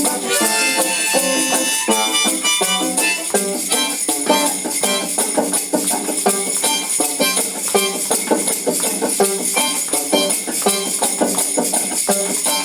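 Live acoustic instrumental playing without singing, with a shaker-like rattle keeping a steady rhythm over pitched accompaniment.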